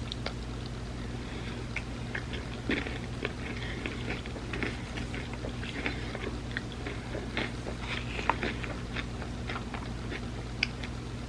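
Close-up eating sounds of someone chewing a layered tortilla dessert lasagna: irregular soft clicks and sticky mouth noises, a few sharper crunches, over a steady low hum.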